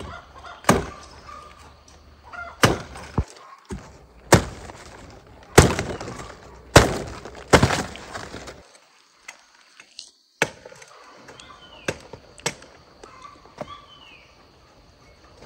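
A series of about ten sharp knocks or chops at uneven intervals, roughly one a second, loudest about halfway through.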